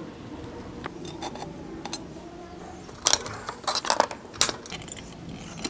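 Light metallic clinks and clicks as new drum brake shoes and their hardware are handled and fitted, with a cluster of sharper clicks about three to four and a half seconds in.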